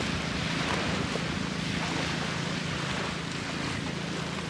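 Steady sea ambience: gentle surf washing on the shore with wind on the microphone, an even hiss with a low rumble underneath.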